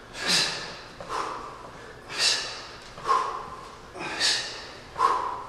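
Sharp, forceful breaths blown out in time with kettlebell high pulls, about one every two seconds. Each is followed, under a second later, by a shorter, softer breath sound.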